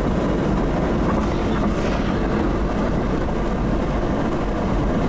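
Steady road noise of a car driving at highway speed, heard from inside the cabin: a constant low rumble of tyres and engine.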